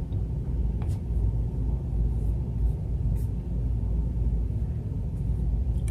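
Steady low background rumble through a pause in speech, with a faint click about a second in.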